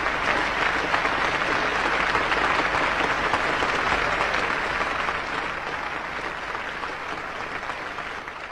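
Audience applauding after the song ends, a steady clapping that fades away over the last few seconds.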